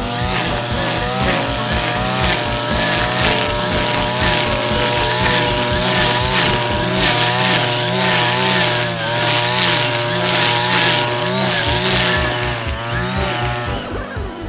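Background music with a steady, driving beat that drops out for a few seconds in the middle and then comes back in.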